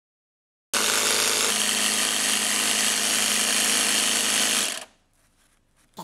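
Portable electric air compressor running steadily, inflating a flat bicycle inner tube. It starts abruptly about a second in and stops after about four seconds.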